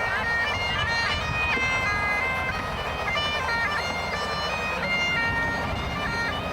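A piped melody in held, high notes that step and slide from one pitch to the next, in the manner of bagpipes, over a steady low rumble.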